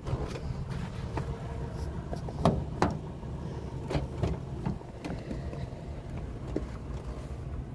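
SUV engine idling steadily, with a few sharp knocks and clicks, the loudest two about two and a half to three seconds in.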